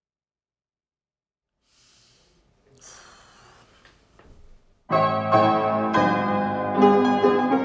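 Upright piano played with both hands, starting suddenly about five seconds in with full chords struck every second or so. Before it there are a few seconds of silence and then some faint noise.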